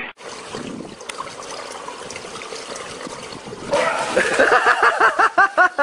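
Swimming-pool water lapping and trickling. About three and a half seconds in, water splashes at the pool's edge and loud, excited human voices break out in rapid repeated calls.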